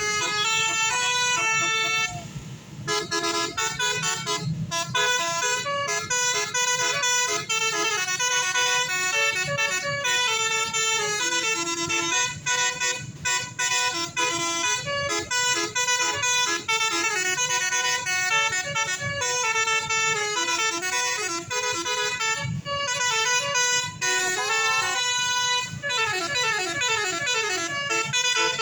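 Tour bus's basuri telolet horn playing a fast melody of quick stepped notes, with a short break about two seconds in and sliding notes near the end.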